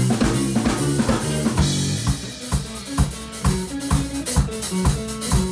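Live band playing a song: the drum kit's kick and snare keep a steady beat, and sustained low notes move beneath it.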